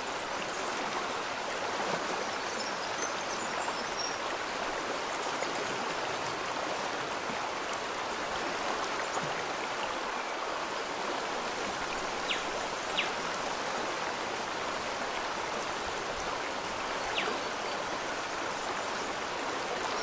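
Water of a small forest waterfall rushing steadily over rocks, an even, unbroken splashing hiss.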